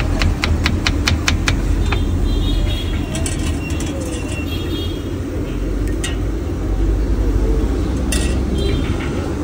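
Knife chopping onions on a cutting board, quick sharp taps about five a second for the first two seconds, then stopping. Under it a steady low rumble runs throughout.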